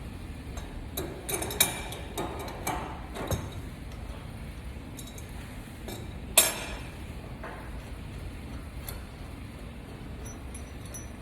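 Metal parts and tools clinking and knocking while boiler handhole covers and their fittings are handled: a cluster of short clinks in the first few seconds, then one sharp, ringing clink about six seconds in.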